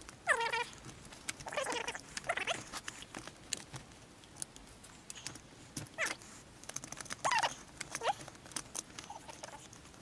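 Short squeaky cries, about six of them spread through, each sliding in pitch, over light clicks and knocks of hands working the plastic housing of a small chainsaw.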